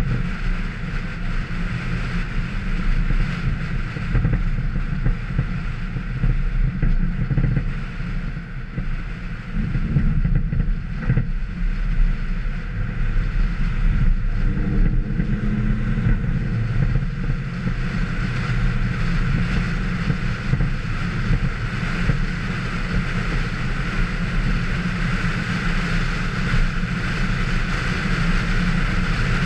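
A vehicle's engine running steadily at speed over a snow-covered track, with wind rushing over the microphone.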